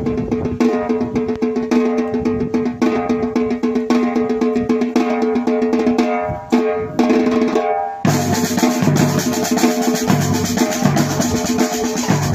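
Music with a drum kit playing a steady beat over held pitched tones. About 8 seconds in the arrangement becomes fuller, with a heavier low end.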